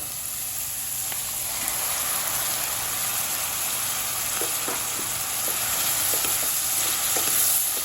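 Chopped onion and tomato frying in hot oil in a kadai: a steady sizzling hiss, with a few faint ticks partway through.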